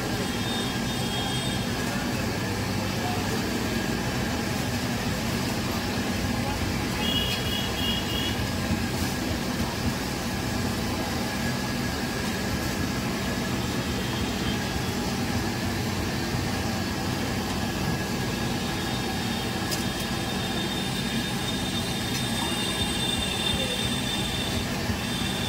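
Steady city street din with a low, even hum under it, like distant traffic or machinery, and a short high-pitched beep about seven seconds in.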